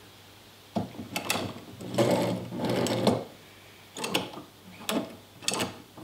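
A homemade quick-release vice mechanism worked by hand: a steel threaded rod turning and sliding in its welded steel housing. Metal clicks and clunks come as the half nut engages the threads, wedges tight and is knocked back out by its tab, with a longer scraping rattle in the middle.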